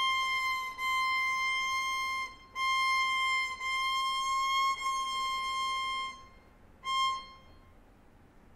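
Solo violin playing a single high note, sustained over several bow strokes. Around the middle the pitch creeps slightly up and back, and one short stroke follows about seven seconds in.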